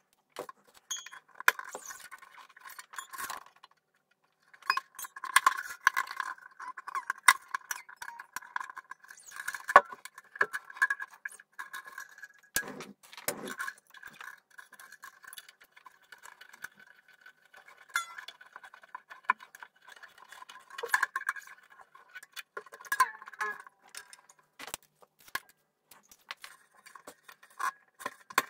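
String winder turning a mandolin's tuning pegs as new strings are wound on: a dense, continuous rattling and clicking, with the loose strings jingling. A couple of duller knocks come a little before halfway.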